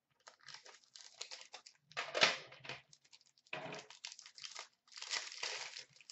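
Wrapper of an Upper Deck Premier hockey card pack crinkling and tearing as it is opened by hand, in a series of short bursts, the loudest about two seconds in.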